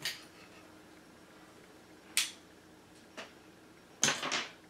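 Handling noise from a fishing rod and spinning reel: a few separate sharp clicks, about two and three seconds in, then a quick cluster of clicks and taps near the end.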